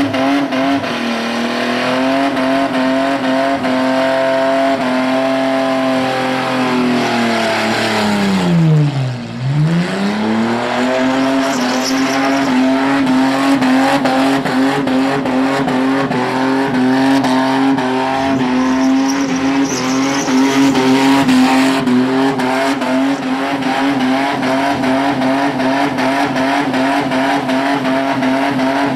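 V6 Holden Commodore doing a burnout, engine held at high revs while the rear tyres spin and squeal. The revs fall away sharply from about seven seconds in, bottom out a little after nine seconds, then climb straight back up and hold high again.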